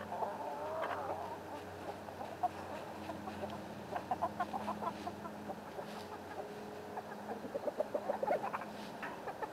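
A flock of backyard chickens, hens and roosters, clucking. A drawn-out call comes near the start, followed by runs of short, quick clucks in the middle and near the end.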